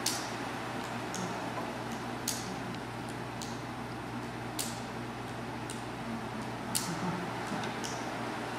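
Sharp ticks at a steady beat, about one every second, over a steady low hum of room noise.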